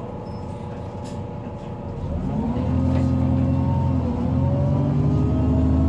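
Diesel engine of a Volvo B9TL double-decker bus, heard from on board, running steadily. About two seconds in it grows louder and rises slightly in pitch as the bus accelerates, then dips briefly partway through before pulling on.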